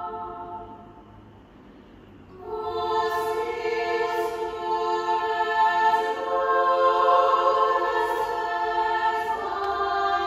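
Choir singing a cappella in sustained chords. A held chord dies away in the first second, then the voices re-enter about two and a half seconds in and swell, changing chord twice, with a few soft 's' consonants.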